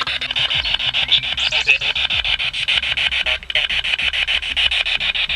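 Ghost-hunting spirit box sweeping through radio stations: choppy static pulsing about ten times a second, with a brief break about three and a half seconds in.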